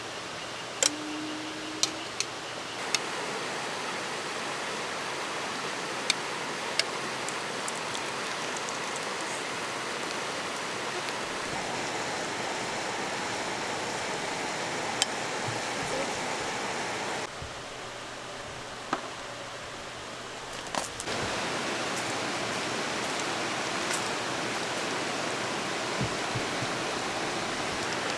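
Mountain stream rushing steadily, with a few sharp clicks and knocks over it. Its level changes abruptly a few times.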